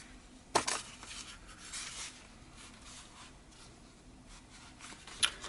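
Paper and craft materials being handled on a work table: a sharp tap about half a second in, some faint rustling and scraping, and a short click near the end.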